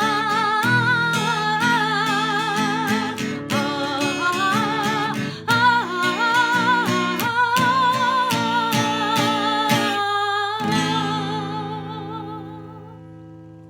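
Instrumental outro of an Arabic cartoon theme song: a lead melody with vibrato over plucked-string accompaniment, fading out over the last few seconds.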